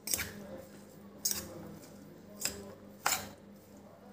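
Steel spoon scraping and clinking against a steel bowl as it stirs a wet mix of grated raw potato and soaked sago pearls, four strokes.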